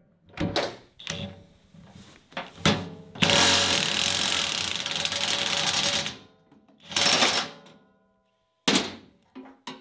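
Cordless impact wrench hammering for about three seconds, with a second short burst a little later, breaking loose the nut that holds a rotary cutter's blades. A few light metal clinks of the socket being fitted come before it.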